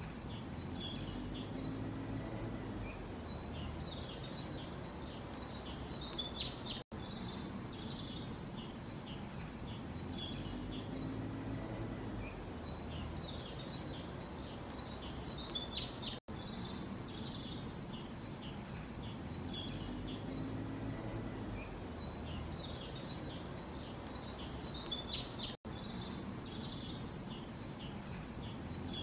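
A chorus of small birds chirping and trilling in quick high calls over a steady low background hum. The recording loops about every nine seconds, with a brief dropout at each join.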